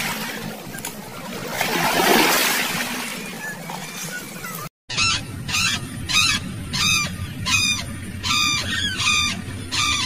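A rushing noise that swells and fades. Then, about halfway through, a flock of flamingos calls over and over, about two calls a second.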